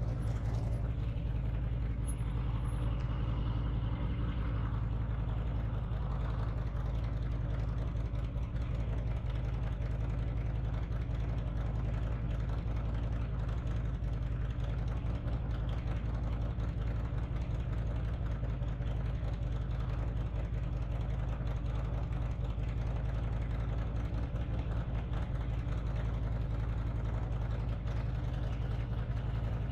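Cruiser motorcycle engine idling steadily while stopped, a constant low rumble with no revving.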